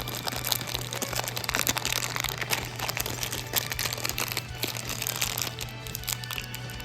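Plastic packaging crinkling with scattered light clicks as small Beyblade parts are handled, over a steady low hum.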